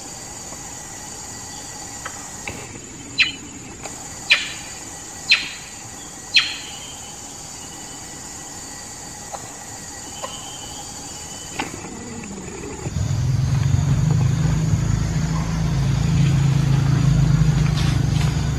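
Steady buzzing of forest insects. A few seconds in it is broken by four sharp, short sounds about a second apart. Near the end a loud, low, engine-like drone sets in and covers it.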